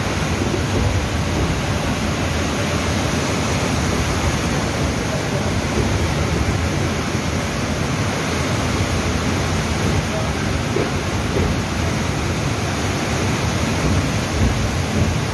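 Steady, loud rushing noise from a train crossing a bridge over a flooded river, heard from the carriage window: the train's running noise and the churning floodwater below blend into one even roar.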